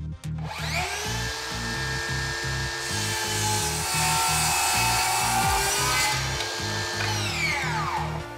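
Makita DHS900 36 V brushless cordless circular saw whining up to speed about half a second in, then cutting through a thick softwood beam for about three seconds. Near the end the blade winds down with a falling whine. Background music with a steady beat plays underneath.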